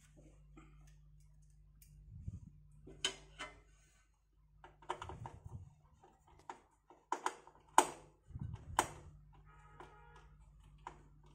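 Scattered clicks and taps of a screwdriver and screws as a motherboard is screwed into a desktop computer case, the sharpest taps coming about two-thirds of the way through, over a faint low hum.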